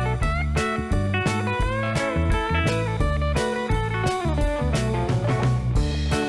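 Background music: an instrumental track with a guitar lead that bends its notes, over bass and a steady drum beat.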